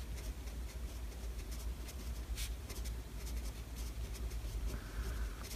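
Pen scratching on paper as a short handwritten note is written, faint, over a low steady hum.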